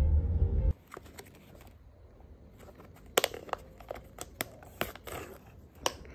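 A low rumble cuts off within the first second. Then a shiny plastic-foil toy bag is crinkled and torn open by hand, with sharp crackles and snaps scattered through the rest.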